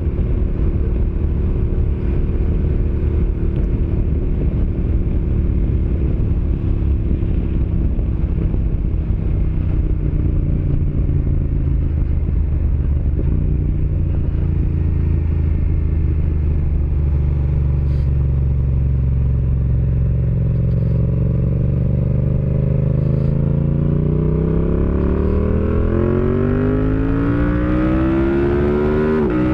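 Yamaha MT-07's 689 cc parallel-twin engine and exhaust running steadily while the motorcycle is ridden, then climbing in pitch under acceleration over roughly the last ten seconds, with a quick drop in pitch at a gear change near the end.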